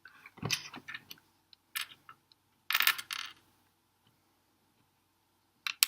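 Plastic LEGO bricks clicking and clattering as loose pieces are handled and picked through, with a longer rattle of pieces about three seconds in.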